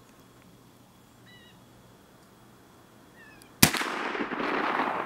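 A percussion-cap muzzleloading rifle fires once about three and a half seconds in: a sharp crack followed by about two seconds of rolling echo.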